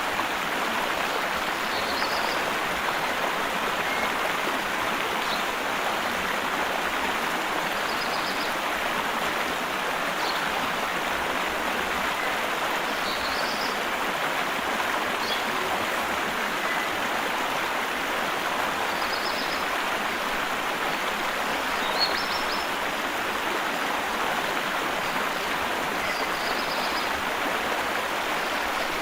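Steady rushing of a flowing stream, with a bird giving short high chirps every few seconds.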